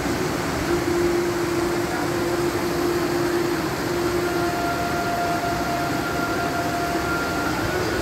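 Waterfall splashing down a rock face onto rocks: a steady rushing. Two faint long held notes ride over it, the second higher than the first.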